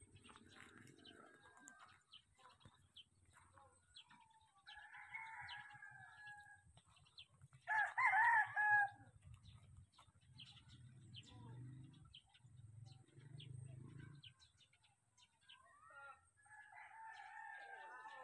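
Roosters crowing three times, each crow a drawn-out call of a second or two, the loudest about halfway through.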